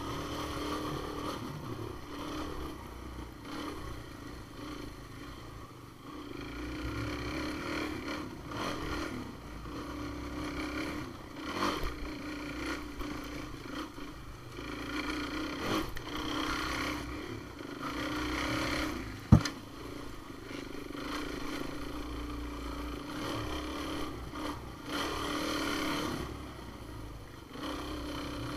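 Engine of an off-road trail vehicle running as it climbs a dirt trail, its pitch and level rising and easing with the throttle. About 19 seconds in there is a single sharp, loud knock.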